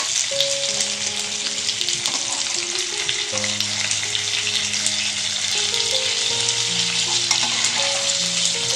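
Rava-and-masala-coated pomfret shallow-frying in hot oil in a pan, sizzling with a steady crackle. A spatula stirs and scrapes in the pan as the fish are turned over.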